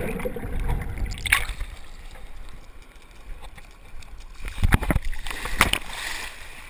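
Sea water sloshing around a camera held at the water's surface: a muffled low wash while it is under water, then a quieter stretch and a few sharp splashes about two-thirds of the way in as it comes up through the small waves.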